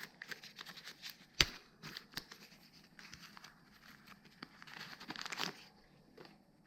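Faint rustling and crinkling of packaging being handled, with scattered small clicks and taps. A sharp click comes about a second and a half in, and a longer rustle near the end.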